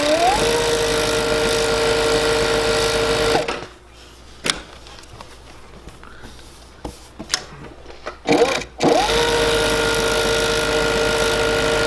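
Juki MF-7523 three-needle coverstitch sewing machine stitching at slow speed, its brushless motor whining up to a steady pitch. It runs for about three seconds and stops. After a few clicks it speeds up again about eight seconds in and runs steadily to the end.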